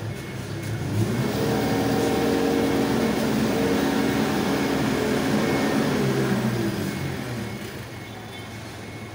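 Forklift engine revving up about a second in, running hard and steady for several seconds while the mast raises a pallet of rice sacks, then easing back toward idle near the end.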